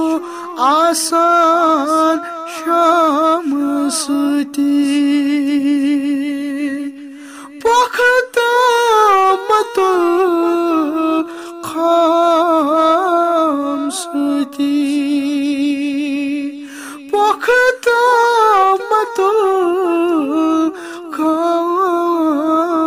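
A cappella vocal music from a Kashmiri nazm: a sung melody with long, ornamented held notes over a steady hummed drone. The voice drops away briefly twice.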